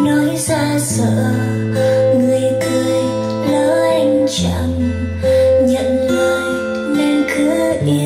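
Music played through a Sony SRS-X9 speaker: a slow song led by acoustic guitar over sustained bass notes, with a wavering melody line, in a speaker sound test.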